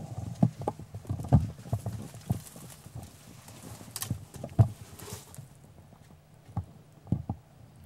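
Footsteps of people walking through dry scrub on rocky ground: irregular thumps and clicks, with a brief brushing sound about four seconds in.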